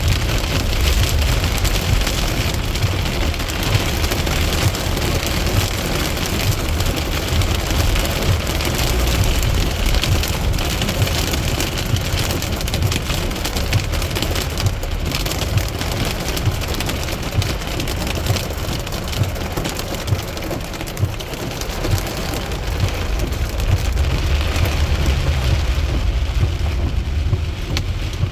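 Hail mixed with rain pelting down, a dense, steady clatter of countless small impacts.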